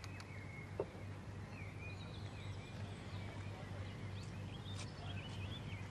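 Faint outdoor ambience: a few birds chirping in short high calls over a steady low hum, with one faint tap just under a second in.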